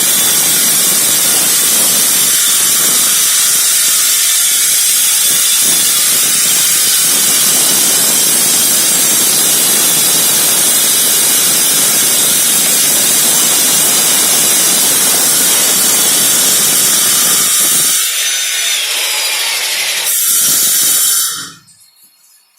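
Husqvarna K4000 Cut-n-Break power cutter's diamond blades cutting a concrete slab, a loud steady hissing grind. About 18 s in the sound thins, and it cuts off abruptly near the end.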